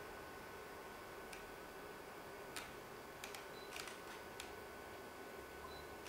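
Quiet room tone: a low steady hiss with a faint steady tone, broken by a few sharp scattered clicks.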